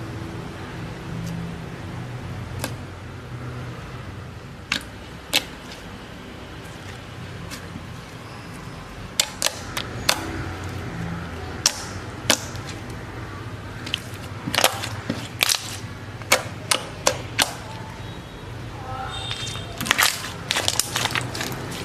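Slime being squeezed and pressed by hand, giving sharp clicking pops at irregular intervals that come thicker in the second half.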